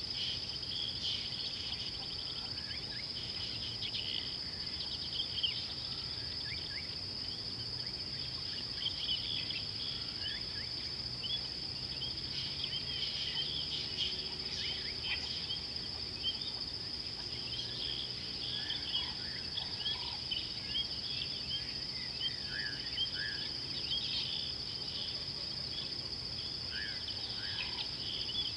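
Steady high-pitched drone of insects, with many short bird chirps scattered over it and a few lower bird calls in the second half.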